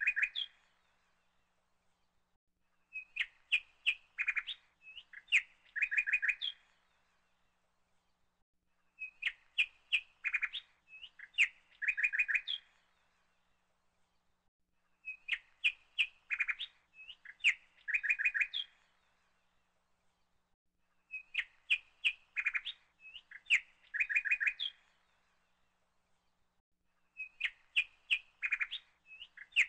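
Birdsong: a phrase of quick chirps and short trills, repeated identically about every six seconds as a looped recording.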